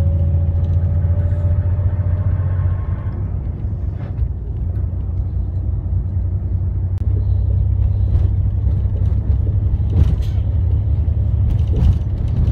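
Steady low rumble of a moving road vehicle heard from on board, with a faint rising engine whine in the first few seconds and a few knocks and rattles later on.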